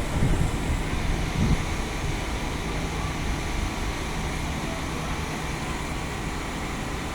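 Steady vehicle noise, a low rumble with a faint hum, with wind buffeting the microphone for the first second and a half.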